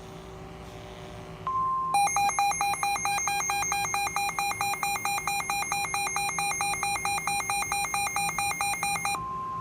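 A NOAA Weather Radio receiver alerting for a tornado warning. The broadcast's steady 1050 Hz warning tone starts about a second and a half in, and then the radio's own loud, rapidly pulsing alarm beeps over it for about seven seconds. When the alarm stops near the end, the steady tone is heard again.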